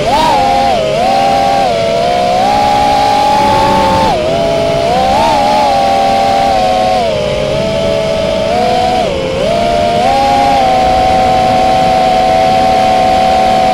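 Electric motors of a small FPV radio-controlled aircraft whining close to the onboard camera, the pitch rising and falling repeatedly with the throttle, then holding steady near the end.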